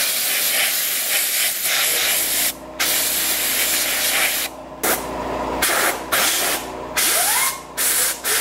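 Compressed air hissing in a string of bursts of a second or two each, cut off sharply between them, blowing dust out of a desktop computer.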